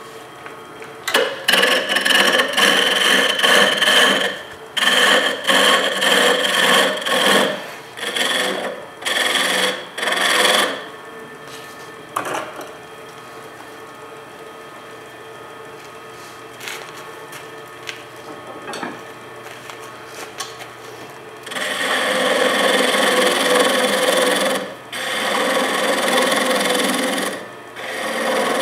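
A turning tool cutting a spinning Banksia pod on a wood lathe, with a rasping scrape in a series of cuts one to three seconds long. There is a pause of about ten seconds in the middle where only the lathe's faint running sound remains.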